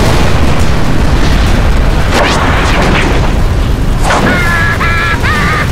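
Cartoon sound effect of a loud storm wind blasting in, a sustained gust with a deep rumble. Near the end come short, high, squeaky cartoon yelps from the larvae.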